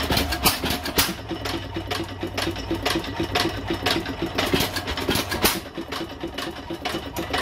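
Original early-1900s New Holland single-cylinder hit-and-miss engine running: sharp firing knocks come at uneven gaps of about a second, over a fast, even clatter of the valve gear and governor. Between firings the governor holds the intake valve shut, so the engine coasts until it slows enough to fire again.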